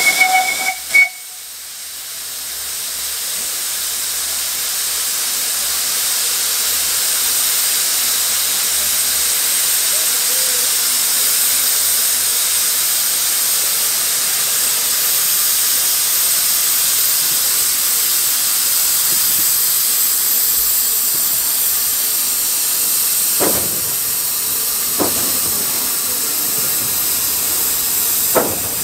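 Narrow-gauge steam locomotive: a whistle note cuts off about a second in, then steam hisses steadily, with a few sharp knocks near the end.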